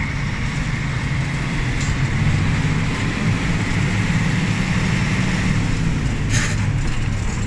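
Fire engine's engine running steadily as the truck drives, heard from inside the cab, with a short hiss about six seconds in.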